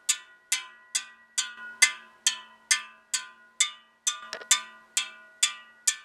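Spokes of a Triumph Terrier rear motorcycle wheel tapped one after another with a metal tool, about two strikes a second, each giving a short ringing ping. The longer spokes all ring a similar note to one another, a sign that they are evenly tensioned.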